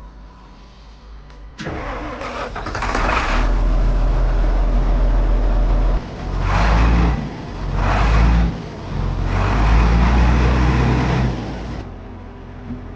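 The rebuilt diesel engine of a Liugong 622 road roller starting up about a second and a half in, then being revved several times, its note rising and falling before it settles lower near the end.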